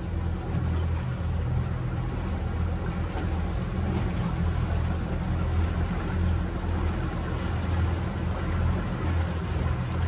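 Motorboat engine running steadily at low speed, a constant low hum with a steady hiss above it.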